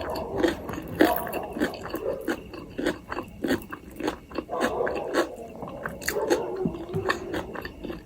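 A person eating close to the microphone: chewing, with many wet mouth clicks and smacks all through.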